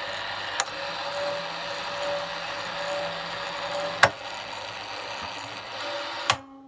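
The R-123M radio's motor-driven autotune mechanism runs steadily as it slews the frequency dial and memory drum back to preset channel one. Sharp clicks come about half a second in and about four seconds in. A last click just after six seconds comes as it locks onto the preset, and the running stops.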